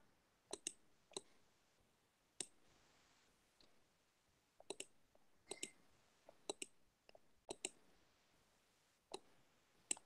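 Computer mouse clicking: about a dozen faint, sharp clicks, several in quick pairs, with near silence between them.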